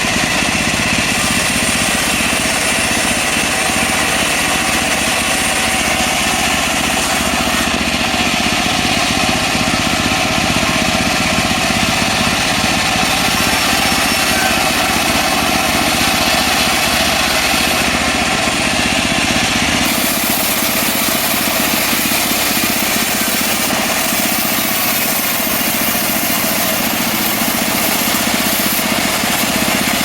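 Engine of a portable band sawmill running steadily. About twenty seconds in, the sound shifts: the low rumble drops away and the hiss grows brighter.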